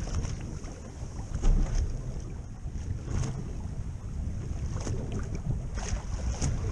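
Wind buffeting the microphone on a small boat at sea, a low, uneven rumble, with a few sharp knocks, the loudest a thump about one and a half seconds in.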